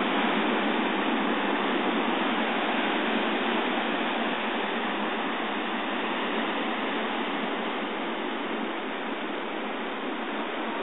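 Ocean surf breaking on a rocky shoreline at high tide: a steady rushing wash of noise that eases slightly in the last few seconds, heard through a phone's microphone.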